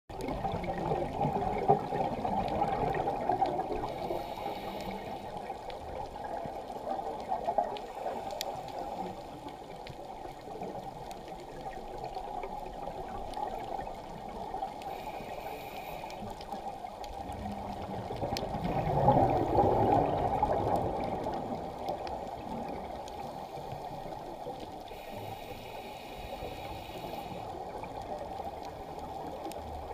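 Muffled underwater sound as heard on a dive: a steady rush of water with the bubbling of scuba exhalations, swelling for the first few seconds and again about eighteen seconds in.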